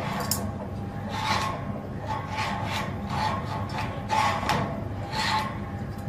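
An African grey parrot in its wire cage making a series of short, raspy sounds, irregularly spaced, about one or two a second, over a steady low hum.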